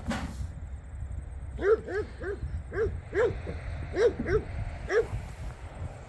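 An animal's short calls, about nine of them over some three seconds, each rising and falling in pitch.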